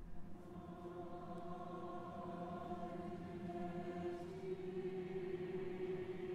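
Choir and orchestra holding soft sustained chords in a slow choral-symphonic passage, moving to a slightly higher chord about four seconds in.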